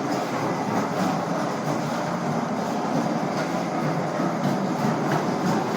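Floor grinding and polishing machine running steadily on a stone floor, a continuous grinding rumble.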